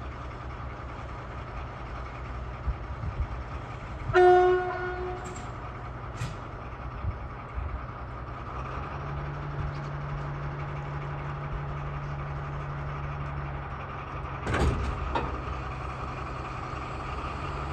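Harz narrow-gauge diesel-hydraulic locomotive running with a steady low hum. About four seconds in, a short blast of a train horn sounds. About fifteen seconds in there is a sharp knock.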